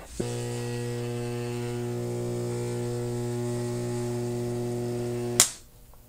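Rewound microwave oven transformer with a three-turn high-current secondary humming steadily while switched on: a low hum with a stack of buzzing overtones. It cuts off with a sharp click about five and a half seconds in.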